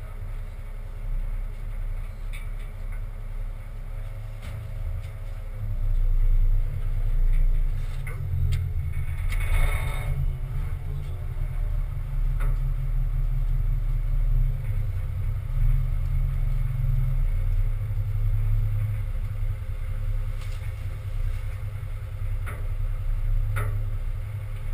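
Truck's engine and chassis giving a steady low rumble as it rolls slowly, heard through a camera mounted at its rear step, with a few short knocks and rattles, the biggest about nine to ten seconds in.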